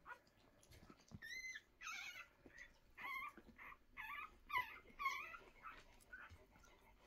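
Newborn whippet puppies squeaking and whimpering, a run of about six short, high-pitched squeaks starting about a second in, faint.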